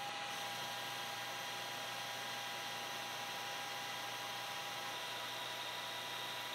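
Metal lathe running steadily while a carbide tool turns down a metal bar: an even hiss with a few faint, steady whining tones.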